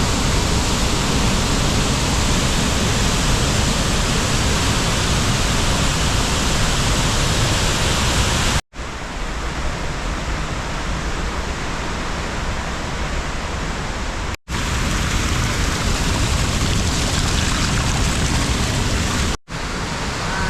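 Waterfall rushing with a loud, steady roar of falling water, broken by three brief drop-outs.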